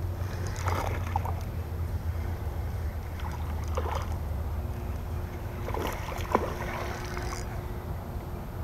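Largemouth bass being played on a spinning rod, with a few short splashes and rustles about one, four and six seconds in, the sharpest near six seconds. A steady low wind rumble on the microphone runs underneath.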